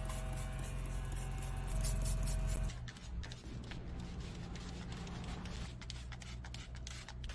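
Trigger spray bottle spritzing tire dressing onto a tire: a quick run of short hissing squirts, a few a second, starting about three seconds in. Before that, a steady low hum.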